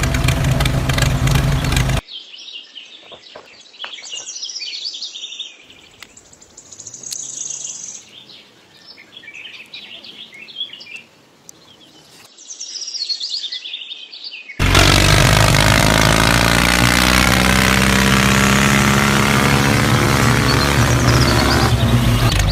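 Tractor engine running, which cuts off suddenly about two seconds in. Birds chirping follow for about twelve seconds, then a loud steady engine sound comes back in abruptly for the last third.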